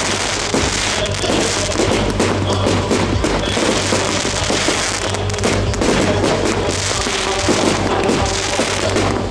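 Fireworks display: many shells bursting in quick succession with continuous crackling, while music plays along.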